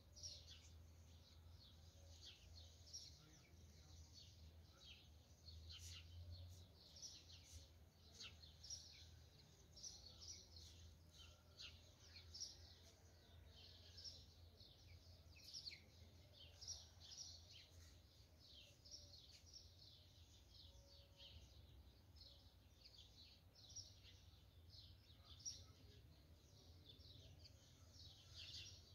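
Faint outdoor ambience of small birds chirping and twittering in short, scattered calls, over a low steady rumble.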